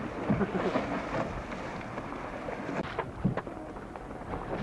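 Wind buffeting the microphone over choppy water, with splashing from a sailing dinghy's hull, and a sharp thump about three seconds in.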